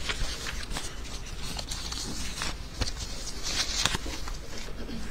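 Courtroom room tone: a low steady hum with scattered faint clicks and knocks, and no speech.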